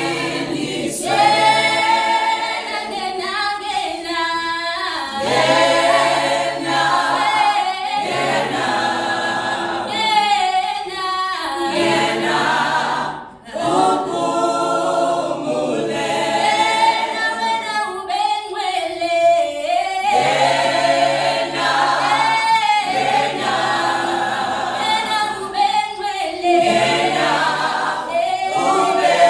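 Mixed a cappella vocal group of women and men singing in harmony, phrase after phrase with short breaks between, and a brief pause about thirteen seconds in.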